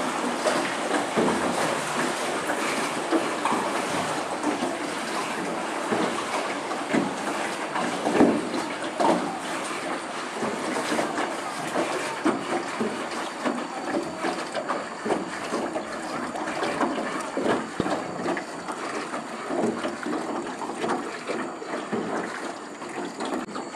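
Water splashing and lapping against a small rowboat as it is rowed along the river, a dense, steady, irregular sloshing.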